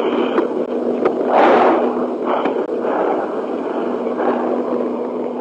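Noisy emergency telephone call recording between spoken lines: a steady rushing hiss over a constant low hum, swelling briefly about a second and a half in.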